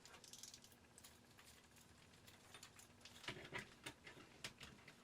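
Near silence with faint, scattered light clicks and ticks.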